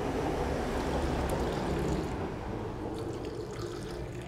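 Hot cocoa tea poured in a thin stream from one enamel mug into another, a steady trickling pour that eases off slightly near the end. Pouring it back and forth between the mugs cools the tea.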